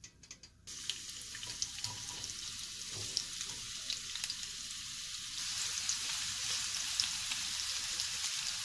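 Sliced carrot sticks dropped into hot oil in a frying pan, sizzling and crackling with many small pops. The sizzle starts suddenly under a second in and grows a little louder about five seconds in.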